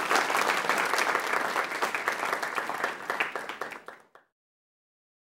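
Audience applauding, many hands clapping together at the end of a lecture. It tails off and cuts off abruptly about four seconds in, leaving silence.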